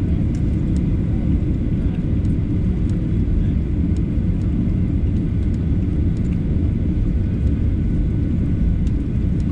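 Boeing 737-800 taxiing with its CFM56 engines at idle: a steady low rumble with a faint hum above it.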